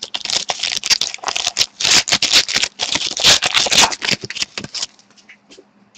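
Trading-card pack wrapper being torn open and crinkled while the cards are slid out, a dense run of crackles and rustles that stops about five seconds in.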